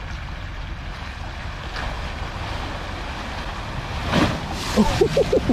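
2022 Chevrolet Silverado ZR2 pickup's 6.2-litre V8 running as the truck drives into a muddy creek, with wind on the microphone. About four seconds in, water splashes as the front end ploughs into the creek. A voice lets out several short whoops near the end.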